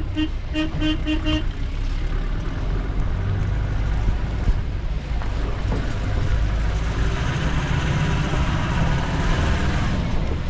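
Vehicle horn honking a quick run of about five short toots at livestock on the road, over the steady rumble of the ute's engine heard from its open rear tray. Wind noise grows on the microphone in the second half.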